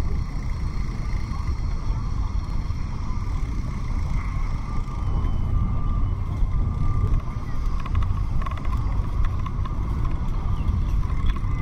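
Steady low rumble of wind on the microphone and road noise from a bicycle being ridden, with a few light rattles around eight seconds in and near the end.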